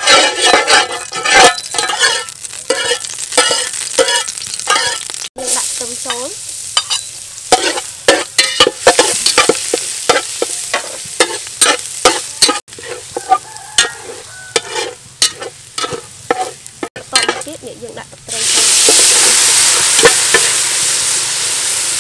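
Minced garlic frying in oil in a stainless steel pot, sizzling, as a metal spatula and ladle scrape and clink against the pot in quick irregular strokes. About 18 seconds in, a loud, steady hiss takes over as liquid is poured onto the hot garlic.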